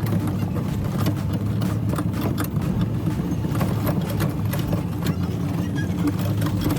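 An engine running steadily, with scattered light clicks and rattles over it.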